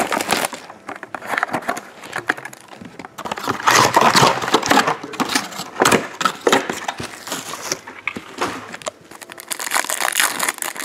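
Clear plastic shrink-wrap and a foil trading-card pack crinkling and tearing as a box of baseball cards is unwrapped and the pack is pulled open, an irregular run of crackles and sharp clicks.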